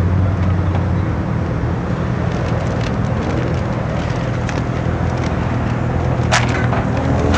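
Car engine running with a steady low hum, its pitch rising as it speeds up about two and a half seconds in and again near the end. A single sharp click sounds a little after six seconds.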